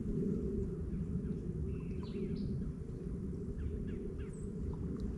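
A few faint, short bird chirps, some near two seconds in and more a little later, over a steady low outdoor rumble.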